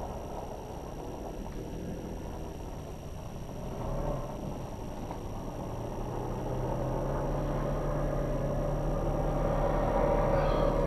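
Engine of a vehicle driving across the ice: a steady low hum that grows gradually louder as it approaches.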